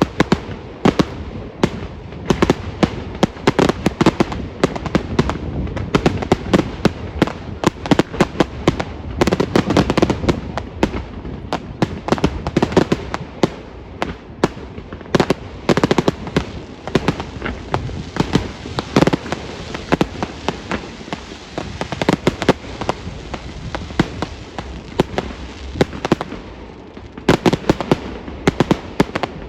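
Fireworks display: a dense, rapid run of sharp bangs and crackling. The bangs ease off briefly near the end, then come thick again.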